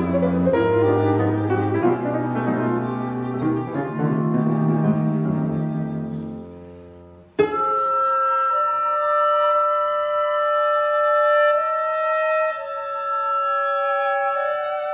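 Chamber ensemble of flute, clarinet, violin, viola, cello and piano playing: a dense passage with piano and low sustained strings fades out about seven seconds in. A sharp plucked cello accent then opens a soft, slow section of held flute, clarinet and muted violin notes.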